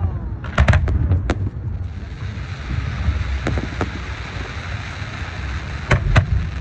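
Fireworks going off: a quick cluster of sharp bangs near the start, single bangs spaced a couple of seconds apart, and two more close together near the end, over a low rumble. From about two seconds in a steady hiss joins and carries on.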